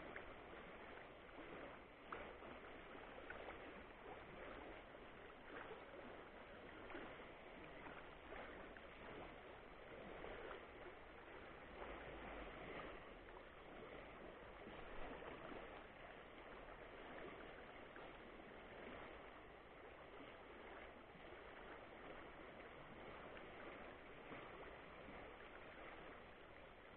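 Faint, steady rush of a fast-flowing river running over shallow rapids.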